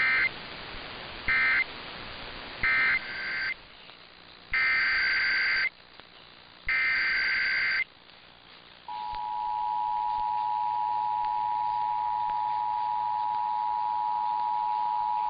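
Emergency Alert System tones: three short warbling two-tone data bursts, the end-of-message code that closes the test, then two longer data bursts of the same kind. About nine seconds in, the steady, harsh two-tone EAS attention signal starts and holds.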